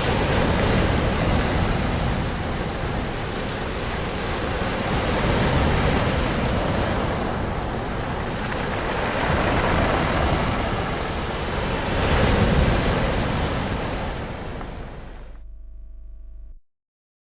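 Ocean waves washing on shore, the surf swelling and easing in slow surges a few seconds apart. Near the end the sound fades, loses its hiss and cuts off into dead silence.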